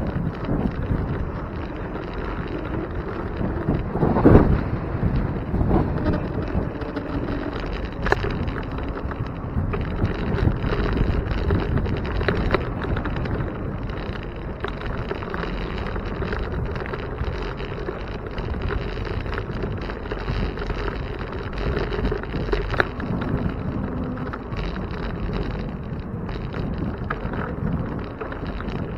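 Wind buffeting the microphone of a camera on a moving bicycle, a steady low rumble with scattered knocks and rattles from the bike rolling over pavement. A louder thump comes about four seconds in.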